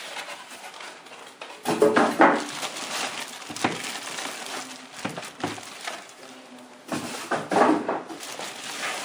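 Foam packing end pieces being pulled and scraped off a plastic-wrapped inkjet printer: irregular rubbing, squeaking and crinkling of foam and plastic wrap, loudest about two seconds in and again near the end.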